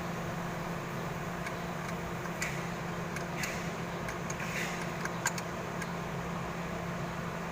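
Steady machine hum holding one low pitch, with a few faint light clicks.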